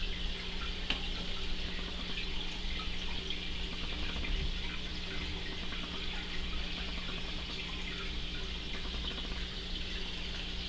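Steady hiss like running water over a low steady hum, with a few faint small clicks.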